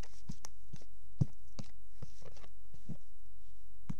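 Irregular small clicks and knocks of hands handling the slime mixture and its containers, with a louder knock about a second in.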